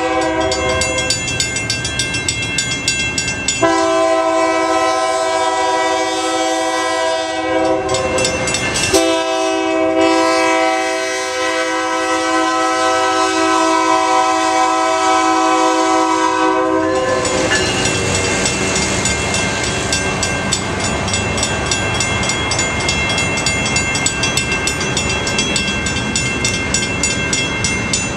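The air horn of an EMD GP40 diesel locomotive sounds several notes at once: one blast ends about a second in, and a long blast runs from about four seconds in to about seventeen seconds, with a brief break near the middle. Mechanical crossing bells ring throughout in an even beat. After the horn stops, the locomotive and its freight cars rumble and clack over the crossing.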